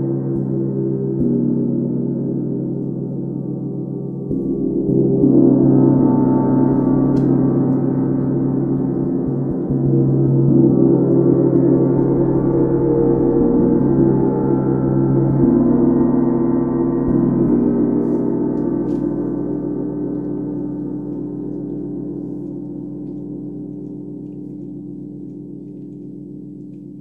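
32-inch UFIP brass symphonic tam-tam ringing with a dense, sustained mix of low tones. It swells louder twice, about four and ten seconds in, then slowly dies away over the last ten seconds.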